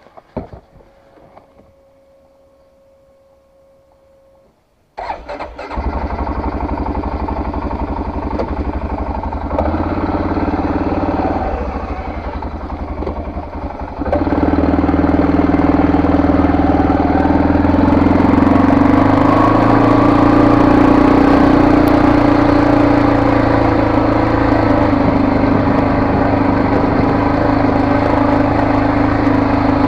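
A vehicle's engine starts suddenly about five seconds in, after a faint steady tone, and runs at idle. From about fourteen seconds in it runs louder and steadier as the vehicle moves off.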